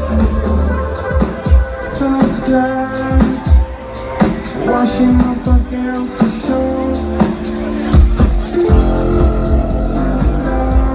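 Live electronic dance song played loud over a festival sound system, heard from among the crowd: synth chords, kick drum and singing. The deep bass drops away about a second and a half in and returns in full about eight and a half seconds in.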